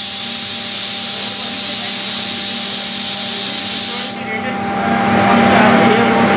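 Oxygen generator plant venting gas: a loud, steady hiss that cuts off abruptly about four seconds in, over the plant's steady machine hum.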